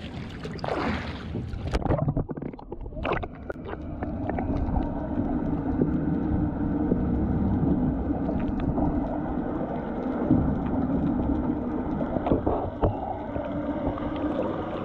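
Water splashing as a hand and fish grip go into the sea about a second in, then the muffled sound heard underwater: water noise with a steady low hum.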